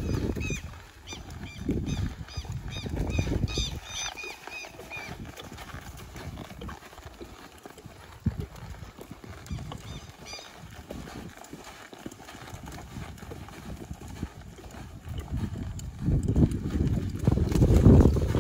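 Horse's hoofbeats on the track: heavy irregular thudding in the first few seconds, quieter in the middle, then heavier again near the end. A run of short high chirps sounds over the first five seconds and briefly again about ten seconds in.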